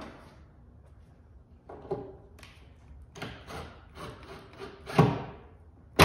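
Cordless drill driver run in short bursts, driving screws into the dinghy's wooden outer stem: several quick runs about half a second to a second apart, the loudest near the end.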